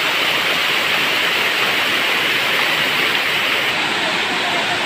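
Steady rushing hiss of water pouring down a waterfall.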